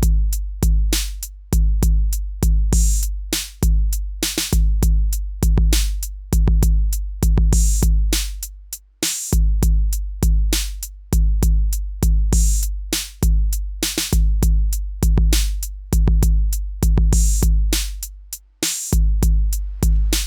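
Electronic background music carried by a drum machine: a steady beat of deep bass-drum kicks and sharp snare and hi-hat hits, about two beats a second.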